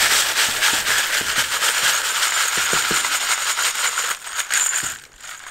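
Wet tumbling-media pellets rattling and clattering through a sieve as it is shaken, sifting the media out from freshly tumbled titanium knife scales. The dense rattle stops about five seconds in.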